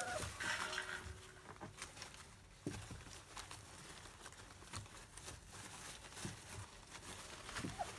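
Four-week-old Labrador retriever puppies shuffling about in a plastic bed: faint scattered rustles and soft clicks, with a brief squeak just after the start and another near the end.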